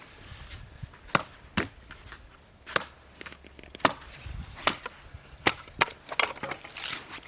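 Firewood being chopped: about ten sharp wooden knocks at irregular intervals, a few louder than the rest.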